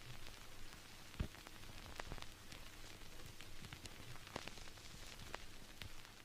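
Wood fire crackling in a wood-burning stove: faint, irregular pops and snaps over a soft steady hiss, with one sharper pop a little over a second in.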